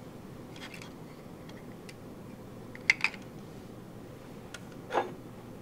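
Small objects handled on a tabletop: a pair of glasses clicks sharply against the table twice about three seconds in, with lighter clicks before, and a duller knock near the end as something is set down on the table.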